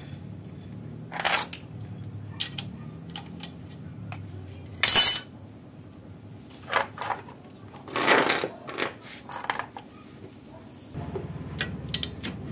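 Metal tools and parts clinking and knocking, irregularly, with one sharp ringing clink about five seconds in.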